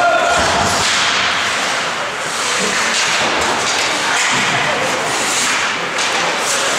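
Ice hockey play in a rink: skate blades scraping the ice and sticks and puck clacking, over a steady hiss.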